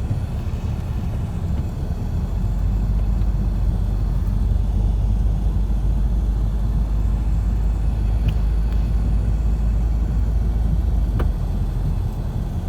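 A vehicle driving through snow: a steady, heavy low rumble of engine and tyres, with a couple of faint clicks late on.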